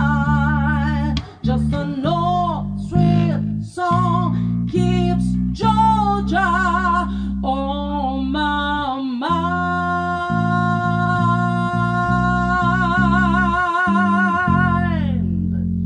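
A singer's voice with vibrato over guitar and bass accompaniment: short wordless phrases, then one long held note of about six seconds that slides down and stops near the end.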